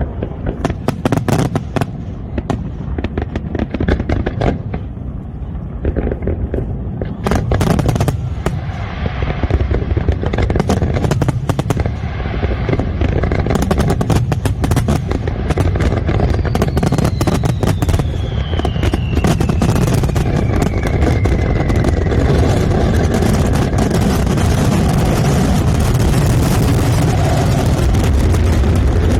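Fireworks display: a rapid run of bursts and crackling reports over a low rumble, becoming dense and near continuous from about a third of the way in. A long descending whistle sounds through the middle.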